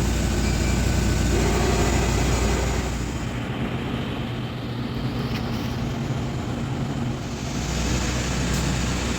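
TIG welder running: a steady electrical hum with a hiss over it. The hiss falls away about three seconds in and returns near the end.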